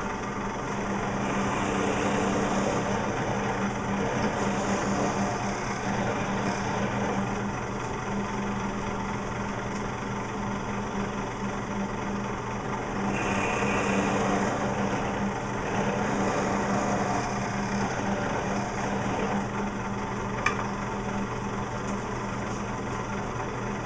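Benchtop drill press running with a steady hum while its bit bores dowel holes into a wooden board; the sound swells a few times as the bit is fed in. A single sharp click comes about 20 seconds in.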